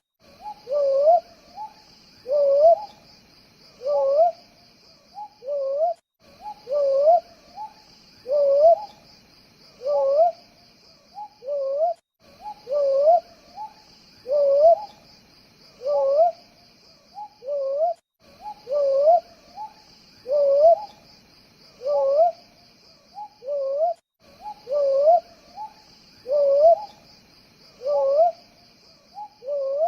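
An owl hooting over and over, each short hoot gliding up in pitch, against a steady background of crickets trilling. The same six-second phrase of hoots repeats throughout.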